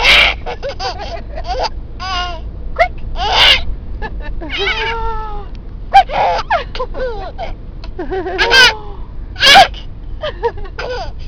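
A baby laughing in short high squeals and giggles, broken by sudden sharp hiccups.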